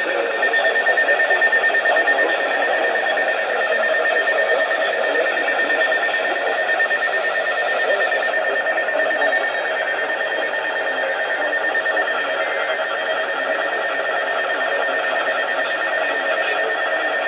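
A loud, continuous, harsh electronic alarm tone, buzzing and unbroken, with a steady high pitch over a rough, dense body.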